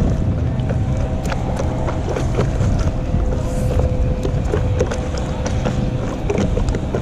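Wind buffeting the camera microphone with a steady low rumble, mixed with splashes and drips from a stand-up paddle board paddle stroking through the water.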